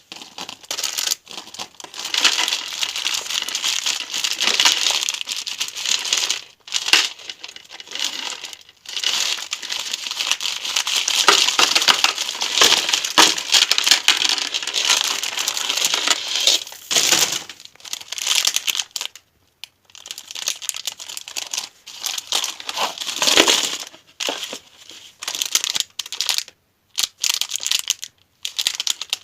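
Packaging wrappers crinkling as sweets and surprise eggs are unwrapped by hand, in irregular spells of rustling with short pauses between them.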